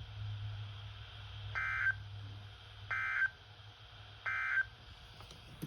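NOAA Weather Radio SAME end-of-message signal: three identical short bursts of warbling digital data tone, each about a third of a second and a little over a second apart, marking the end of the weekly test. A low hum sits under the first burst and fades out.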